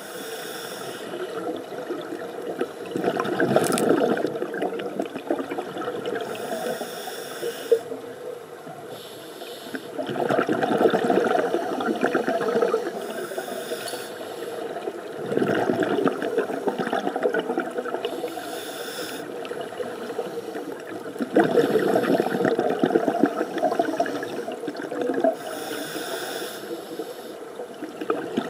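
Scuba diver breathing through a regulator underwater, in slow, repeated breaths: a short hiss on each inhale, then a longer, louder rush of bubbling as the breath is exhaled.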